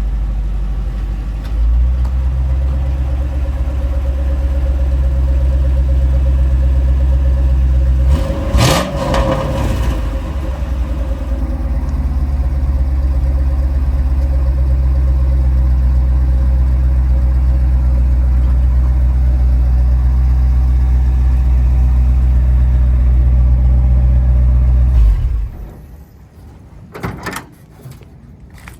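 V8 engine of a Chevrolet C20 pickup running steadily, with a brief rev about eight seconds in. It cuts off abruptly near the end, followed by a few sharp knocks.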